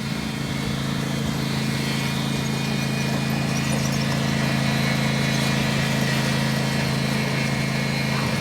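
Riding lawn mower engine running steadily at speed, a constant drone that grows slightly louder.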